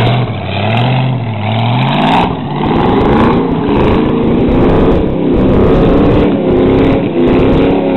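Demolition derby Cadillac's V8 running through open headers and stacks, revving up over the first two seconds, then held at high revs with the pitch wavering as the car pulls away across mud.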